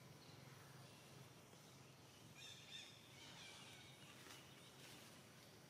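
Near silence: faint outdoor background with a few soft, high chirps partway through.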